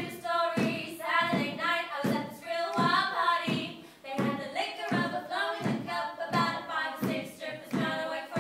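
Unaccompanied female singing, a cappella, in short even phrases of about two a second with held, wavering notes.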